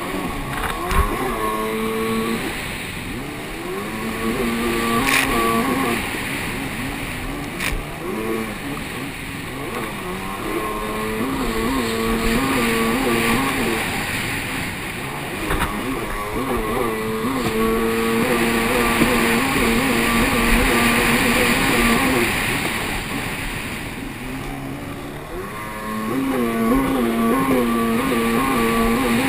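Race jet ski engine running hard, its pitch wavering up and down and dropping out a few times, over a constant hiss of water spray and wind on the onboard camera, with a few sharp knocks.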